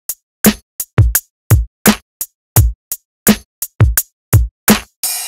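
Electronic drum-machine kit played live from a MIDI keyboard: a steady pattern of kick, snare, clap and closed hi-hat hits, with a longer open hi-hat just before the end.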